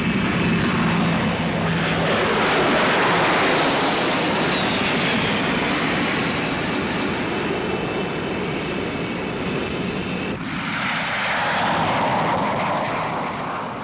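Aircraft flying past: a loud rushing noise with a high whine sliding down in pitch over the first few seconds. About ten seconds in, the sound cuts to another rushing pass that swells, then begins to fade near the end.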